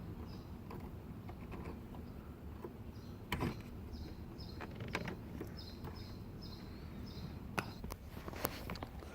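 Plastic clicks and creaks of a car's headlight switch wiring connector being pressed onto the switch by hand under the dashboard. The clicks are irregular, with a louder one a few seconds in and a cluster near the end. Faint high chirps sound in the background.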